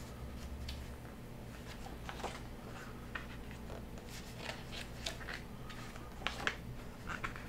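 Pages of a large glossy photo book being handled and turned: scattered soft paper rustles and light crackles, with a louder pair about six seconds in as a page is flipped over.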